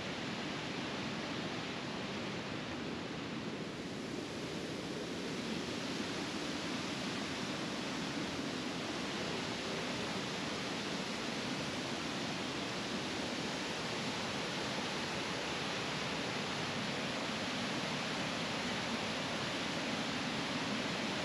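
Steady rushing of a river cascading over granite rapids and a small waterfall, growing a little louder after about five seconds.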